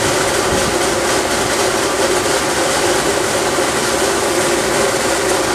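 Steady, even rushing noise of a running protein skimmer, its pump driving water through a Mazzei venturi injector that draws in air.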